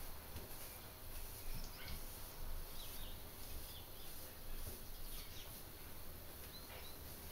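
Outdoor ambience: scattered short bird chirps over a steady high insect hiss and an uneven low rumble.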